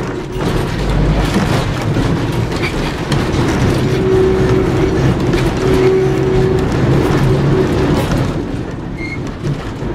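Inside a 1928–29 Porto-built, Brill-type wooden streetcar under way: wheels rumbling and rattling over the rails and the car body shaking. A steady hum sounds for a few seconds in the middle, and the noise eases off near the end.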